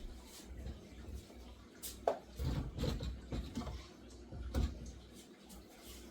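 Knocks and clatters of items and shelves being handled in a refrigerator, loudest about two seconds in and again a little past the middle.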